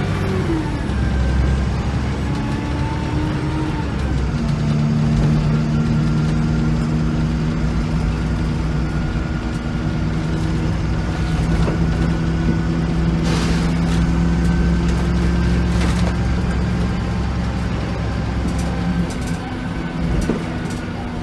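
VDL SB200 Wright Commander bus's diesel engine and drivetrain heard from inside the saloon, pulling away with two drops in engine pitch in the first four seconds as it changes up, then running steadily under way. A few short knocks or rattles come through around the middle.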